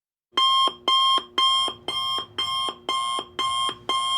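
Electronic alarm beeping in a steady rhythm of about two beeps a second, starting about a third of a second in; each beep steps down to a lower note at its end.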